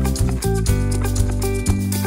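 Background music with held bass notes and plucked melody notes.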